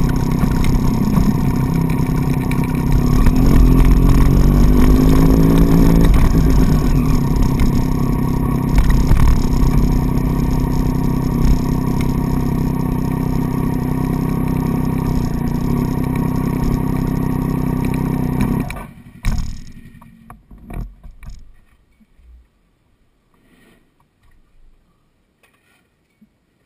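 Triumph Street Triple's three-cylinder engine running, its pitch shifting in the first few seconds as the bike slows and pulls in, then idling steadily until it is switched off and cuts out suddenly about 19 seconds in. A few faint knocks follow.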